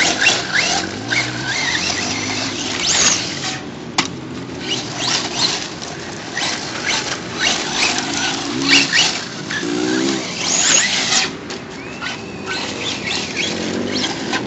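Traxxas Stampede 4x4 RC monster truck's brushless 2400 kV motor on a Mamba Max Pro controller, its whine rising and falling again and again as the truck speeds up and slows, with crackling of dirt and gravel under the tyres.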